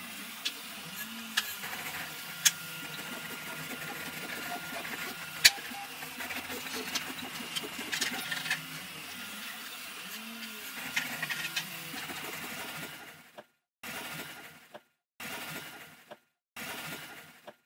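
Rigid 3D-printed plastic parts clicking and knocking together as they are handled and fitted, a few sharp clicks standing out, over a steady hum of room noise. Near the end the sound breaks off in short gaps.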